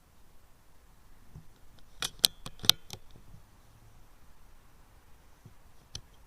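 A quick run of about six sharp metallic clicks, two of them much louder, lasting about a second, then a single click some three seconds later.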